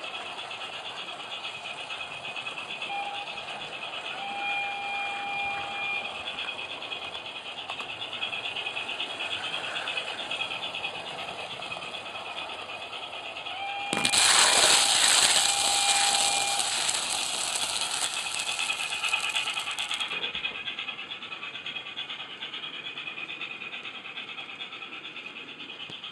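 Howes DCC sound chip in a model Robinson O4 steam locomotive, playing through the model's small speaker as it runs: a steady rattly running sound, with two short whistle toots a few seconds in and again about halfway. From about halfway a loud steam hiss plays for about six seconds and cuts off suddenly.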